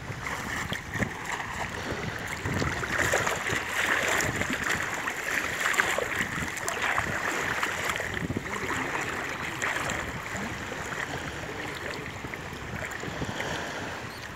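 Water sloshing and splashing around the legs of someone wading thigh-deep through shallow sea, louder through the middle, with wind buffeting the microphone.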